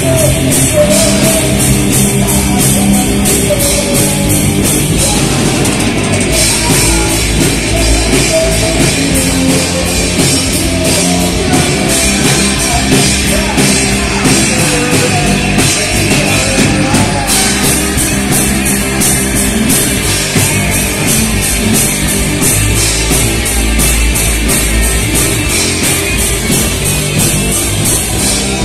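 Punk rock band playing live and loud: distorted electric guitar, bass and a drum kit keeping a fast, steady beat, with no break.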